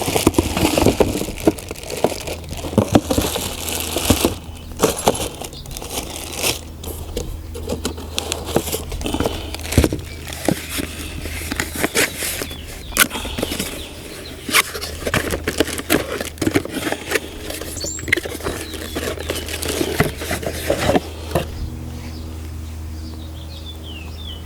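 Packaging being handled while a new battery string trimmer is unboxed: irregular rustling and crinkling with scattered clicks and knocks, over a steady low hum.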